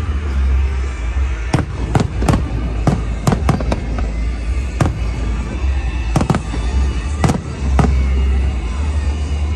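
Aerial fireworks bursting: about a dozen sharp bangs at uneven intervals over a steady low rumble, with music playing underneath.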